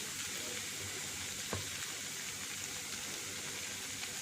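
Prawns sizzling steadily as they fry in oil with a cooked-down onion and tomato masala in the pan, with a single light knock about one and a half seconds in.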